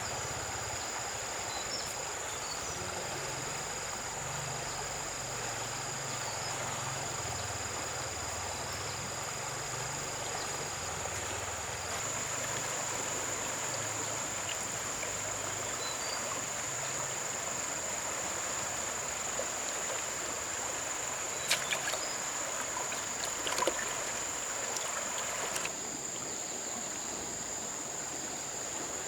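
Outdoor river ambience: a steady high-pitched insect drone over an even rush of flowing water, with a few sharp clicks about three quarters of the way through, after which the water noise drops suddenly.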